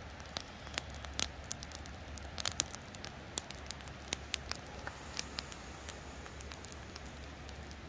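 Campfire coals crackling, with irregular sharp pops and snaps a few times a second.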